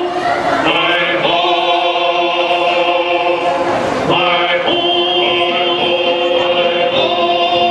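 Music with a choir singing long held notes that change pitch every second or so.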